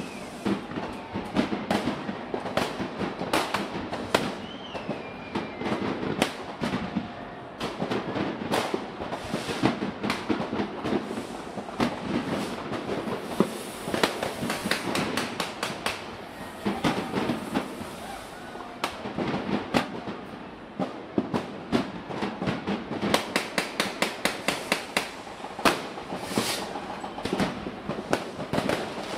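Many fireworks going off at once: a continuous, irregular barrage of bangs and crackling, thickest in dense rapid runs in the later part.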